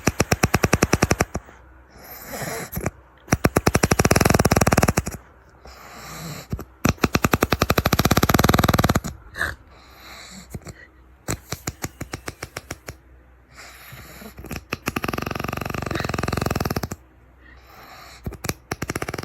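A man snoring loudly in his sleep. Each snore is a fast, rattling flutter about two seconds long, coming roughly every three to four seconds.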